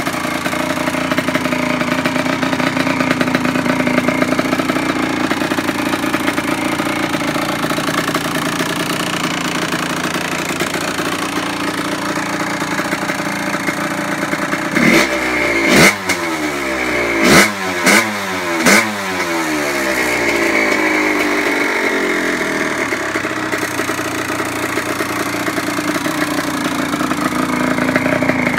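2002 Kawasaki KX85's two-stroke single-cylinder engine idling while it warms up from a cold start. About halfway through come four quick throttle blips, each revving up sharply and dropping back to idle.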